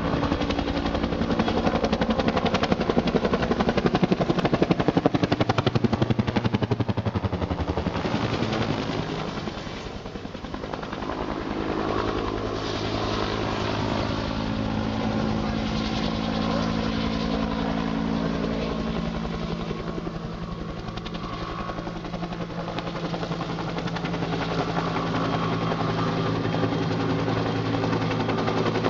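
Bell UH-1 Iroquois (Huey) helicopter flying overhead: its two-bladed main rotor beats rapidly over a steady low hum. It is loudest in the first several seconds, dips about a third of the way in, then grows louder again toward the end as it comes closer.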